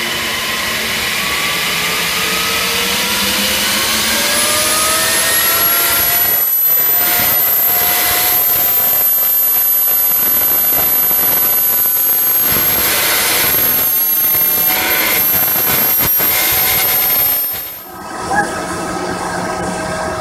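Rover-BRM's gas turbine engine running: a turbine whine that rises in pitch over the first few seconds and then holds steady over a loud rushing hiss. Near the end the sound briefly drops away and a second recording of the turbine comes in, its whine climbing again.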